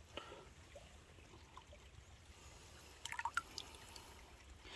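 Hand lifting a stone arrowhead out of shallow creek water: a short cluster of splashes and drips about three seconds in, over the faint trickle of the creek.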